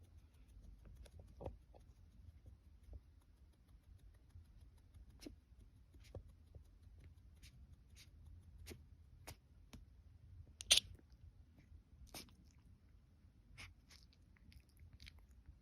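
Faint scattered small clicks and mouth sounds from a long-coat chihuahua puppy, with one short, sharp sneeze about eleven seconds in, the loudest sound.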